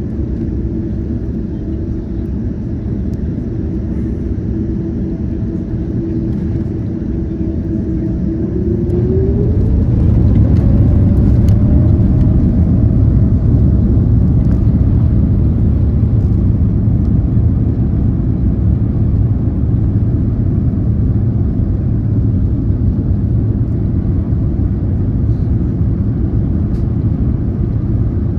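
Boeing 787's twin GEnx turbofan engines spooling up to takeoff thrust: a steady whine climbs in pitch about nine seconds in as the engine noise grows louder, then holds as a loud, steady rumble of the takeoff run.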